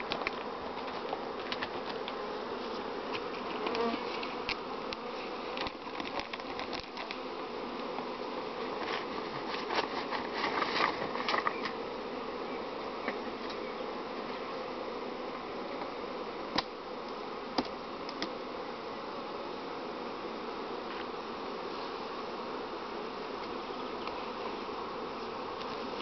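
Honeybees buzzing around open beehives: a steady, dense drone of many bees. A few sharp clicks come through it, a cluster about ten seconds in and two single ones a little later.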